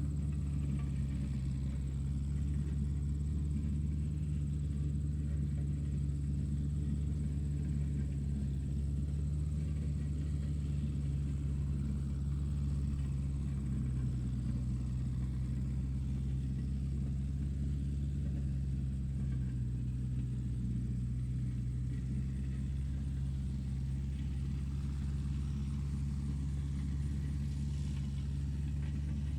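Tractor engine running at a steady speed: a low, even rumble that holds its pitch throughout.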